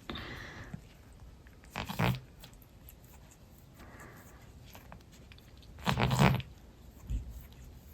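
A cat making short fart-like sputtering noises while grooming herself: two louder bursts, about two seconds in and about six seconds in, with softer grooming sounds between them.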